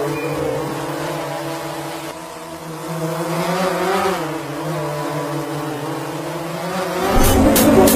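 Quadcopter drone's propellers humming, a steady buzzing tone whose pitch wavers and rises a little in the middle. Near the end, loud electronic music with a heavy beat cuts in.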